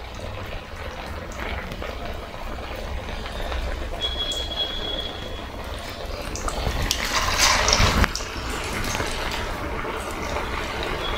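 Flattened-rice vadas deep-frying in hot oil in a kadai, a steady sizzle and bubbling. About seven seconds in the sizzling surges louder for a second or so as a freshly shaped vada goes into the oil.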